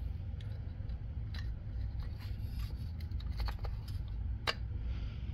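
Scattered small clicks and light scrapes of a 3D-printed carbon-fibre PLA battery tray being pressed and test-fitted onto an RC crawler chassis, the sharpest click about four and a half seconds in, over a steady low hum.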